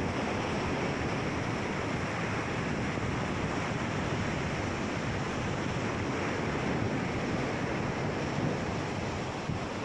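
Steady rush of sea surf on a rocky shore, mixed with wind buffeting the microphone.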